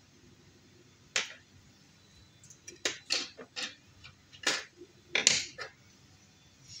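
Sharp, irregular clicks and taps of small hard plastic lure-housing parts being handled. There is a single click about a second in, a quick cluster around three seconds, and another burst near five seconds.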